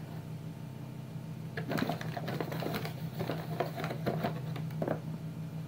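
Hand mixing flour into a wet sugar, egg and oil mixture in a bowl to bring the dough together: irregular scraping and crackling from about a second and a half in. A steady low hum runs underneath.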